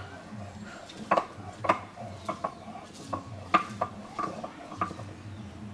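A stone roller crushing garlic cloves on a flat grinding stone (shil-nora): a run of sharp cracks and knocks, about one or two a second, as the cloves split and stone strikes stone.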